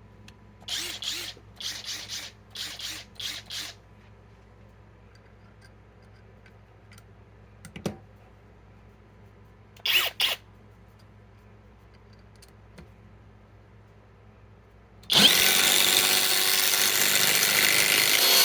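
Cordless impact tool driving a bit into old wood: a string of short trigger bursts, a brief pair near the middle, then a continuous hammering run from about fifteen seconds in, with the bit struggling to cut.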